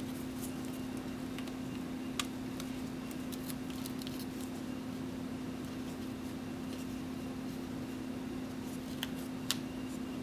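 A few small clicks and taps from handling the laptop's screen parts and connectors: one about two seconds in and two close together near the end, over a steady low hum.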